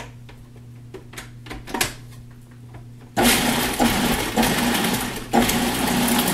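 Light clicks as a food processor's lid is fitted, then about three seconds in its motor starts and runs loud and steady, chopping whole eggs in their shells with lettuce stalks. It cuts out briefly and restarts about two seconds later.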